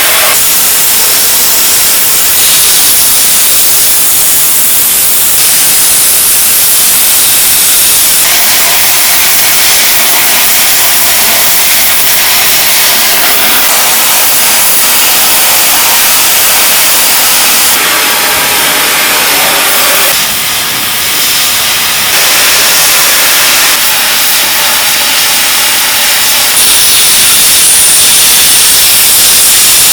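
Loud, dense hiss like static or rushing steam, its texture shifting every few seconds, with a brief dip about twenty seconds in.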